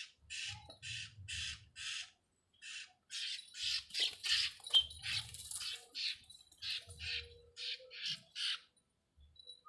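A small animal caught by a cat giving repeated harsh distress squeals, about two a second at first, then quicker and overlapping, with soft low thuds from the struggle underneath.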